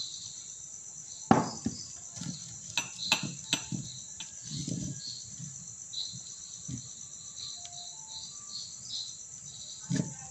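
Porcelain teacups knocking and clinking as they are handled and set down on a table while being greased with oil. There is a cluster of knocks in the first few seconds and one more near the end, over a steady high chirring of insects.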